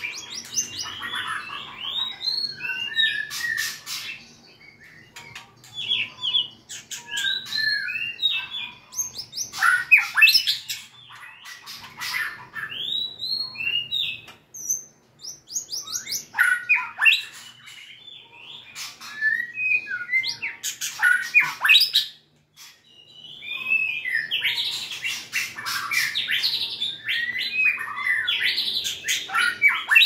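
White-rumped shama singing: bursts of rich whistled notes that swoop up and down, mixed with sharp clicks, with short pauses between phrases.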